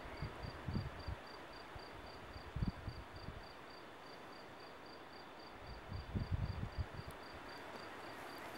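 An insect chirping steadily, a short high chirp about four times a second, with a few brief low rumbles of wind on the microphone.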